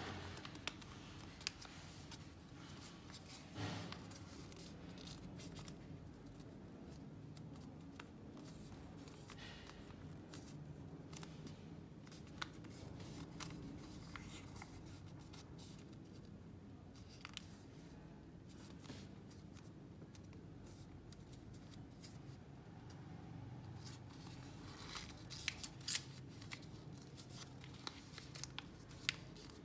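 Origami paper being folded and creased by hand: soft rustles and crinkles with scattered sharp creasing clicks, a quick cluster of them near the end, over a faint low hum.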